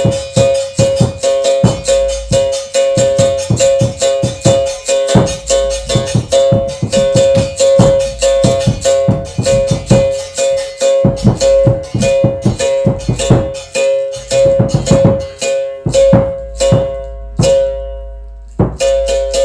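Live instrumental music: a fast run of struck, rattling berimbau-style notes over a steady held tone and a low bass, the held tone dropping out briefly near the end before coming back.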